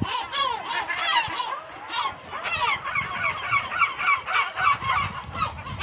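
A colony of gulls calling, many short, overlapping calls from several birds at once.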